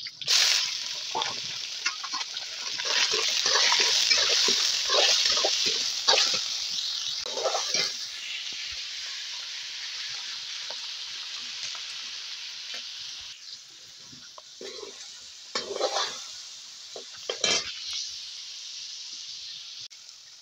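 Chicken pieces tipped into hot oil in a metal wok, setting off a sudden loud sizzle that slowly dies down as the meat fries. A metal spoon scrapes and knocks against the wok as the meat is stirred, most loudly a few times near the end.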